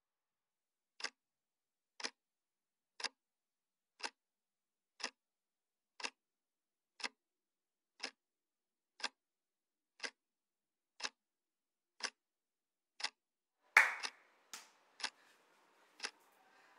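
A clock ticking steadily, once a second, with dead silence between ticks. Near the end there is a sudden loud slap, the loudest sound here, then faint room sound while the ticking goes on.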